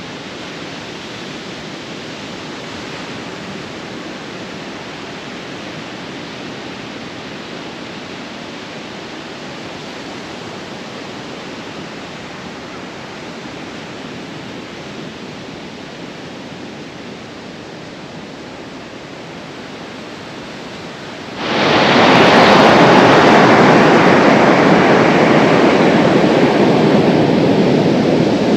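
Steady rushing noise of sea wind and surf on a beach; about 21 seconds in, it jumps suddenly to a much louder rush of wind buffeting the microphone.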